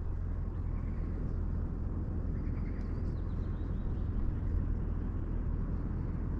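Strong wind buffeting the microphone: a steady low rumble with gusty noise. A few faint high chirps about three seconds in.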